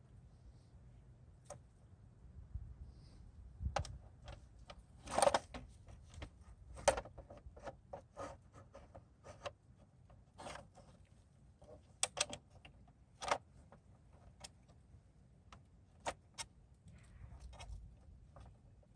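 Irregular light clicks and taps of small screws and the tail section being handled as the screws are threaded in by hand, with the loudest knocks about five and seven seconds in.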